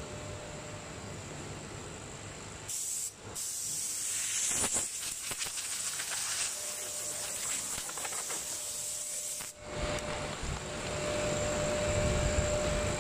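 Compressed-air blow gun hissing as it blows MDF dust off a CNC-carved panel. It starts about three seconds in, breaks off briefly, then runs until it stops sharply near ten seconds. Underneath, the STM1530C CNC router's spindle runs steadily with a thin steady tone as it cuts.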